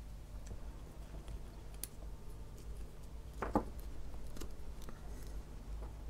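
Quiet handling of a soldering iron's plastic handle and cable as it is fitted back together by hand. There are scattered light clicks, one brief louder sound a little past halfway, and a steady low hum throughout.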